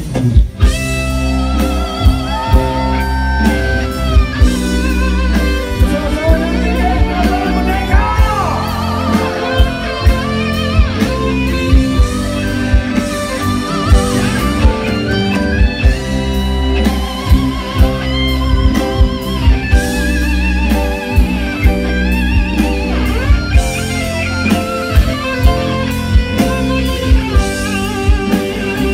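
Live rock band playing an instrumental passage: an electric guitar lead with bends and vibrato over drums on a steady beat and a heavy bass line.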